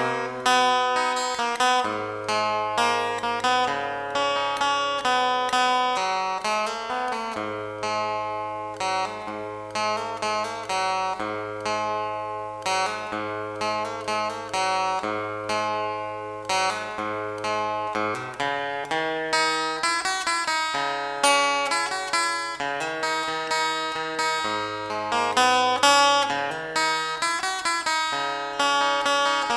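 Background music of plucked acoustic guitar, picked notes over a steady bass line.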